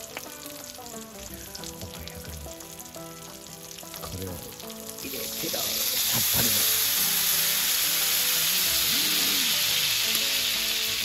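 Offal frying in a hot iron skillet, a steady sizzle. About five seconds in, lemon juice is poured into the pan and the sizzle jumps suddenly to a much louder, steady hiss.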